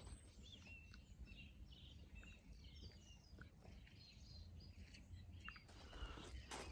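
Faint birdsong: scattered short chirps and whistles over a low background rumble.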